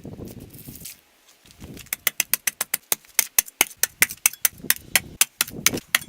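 A fast run of sharp metallic clicks, about five a second, starting about two seconds in, with dull knocks and handling noise between them: metal tools or parts being worked.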